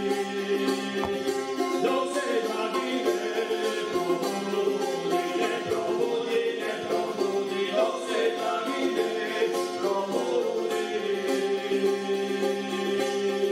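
Serbian folk wind instrument playing an ornamented melody over a steady drone, live.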